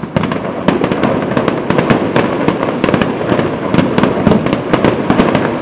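Fireworks going off in a dense, continuous barrage of bangs and crackles, several reports a second with no break.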